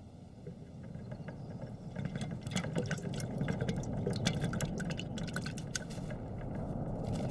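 A low rumble swelling steadily louder, with a growing patter of small clicks and rattles over it.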